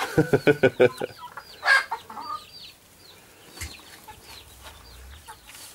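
Chickens clucking: a quick run of about eight clucks in the first second, then scattered softer clucks, with short high chirps repeating throughout.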